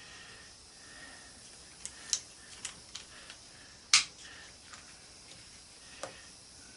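Scattered light clicks and taps of a screwdriver and small metal parts while the screws are taken out of an angle grinder's housing, with one sharper click about four seconds in.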